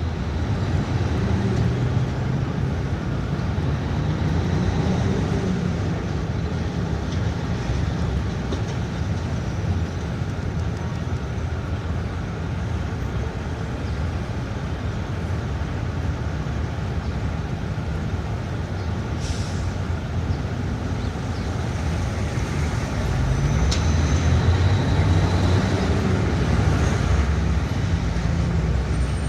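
City street traffic: vehicle engines running and passing in a continuous low rumble, with engine pitch rising and falling as vehicles go by. It swells louder about three-quarters of the way through.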